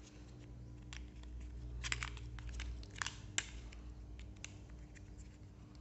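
Hard plastic parts of a toy construction truck kit being handled and pressed together: scattered light clicks and clatters, the busiest about two and three seconds in.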